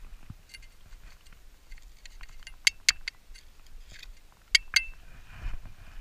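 Sharp metallic clinks in two quick pairs, about two seconds apart, as a handheld pinpointer probe taps against a metal find in a handful of dug soil, with soft rustling of dirt and gloves between; a faint steady high tone sounds after the second pair.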